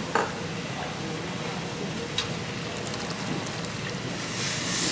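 Reddish broth of chicken stock, fermented tofu and egg simmering in a stainless steel steamboat pot, with a steady hiss of bubbling. A metal ladle clinks lightly against the pot twice. The hiss swells near the end.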